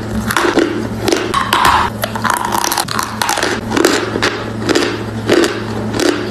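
A mouthful of dry chalk being chewed close to the microphone: a run of crisp crunches, a few a second, over a steady low hum.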